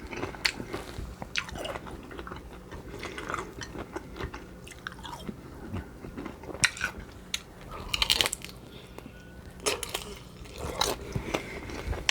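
Close-up chewing and crunching of food, a person biting and eating with scattered crisp crackles.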